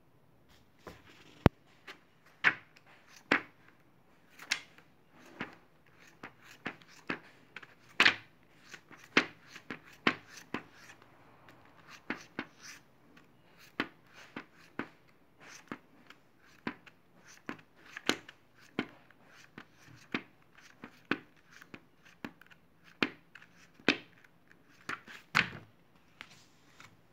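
Pages of a thick paperback book being turned one after another, each turn a short, crisp paper flick, about one or two a second.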